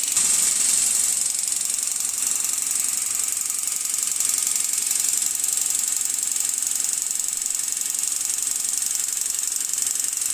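Engine running with a loud, rapid, steady metallic knocking rattle: rod knock from a connecting rod worn out by driving without oil.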